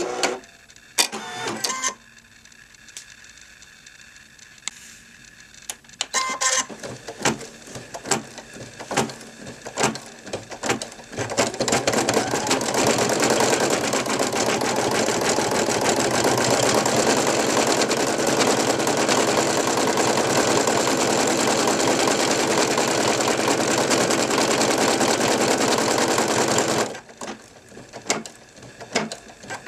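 Brother NV2600 computerized embroidery machine stitching a design: separate stitch clicks for the first several seconds, then a steady fast run of stitching from about a third of the way in that stops shortly before the end, followed by a few scattered clicks.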